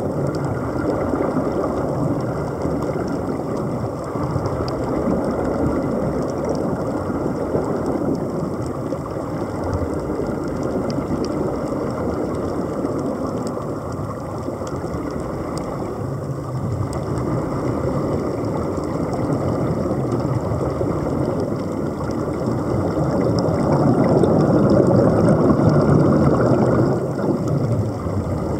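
Muffled underwater rumble of air bubbling out of surface-supplied diving helmets, over a steady low engine-like hum; it swells near the end.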